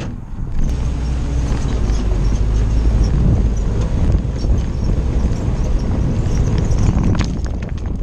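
Willys CJ-2A's four-cylinder Go Devil flathead engine running at low revs as the Jeep crawls over a rocky dirt mound, with a few knocks from the body near the end.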